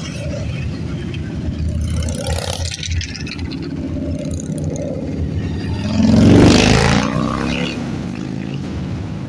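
A procession of touring motorcycles rumbling past one after another. One passes close about six seconds in, the loudest moment, its engine note dropping in pitch as it goes by.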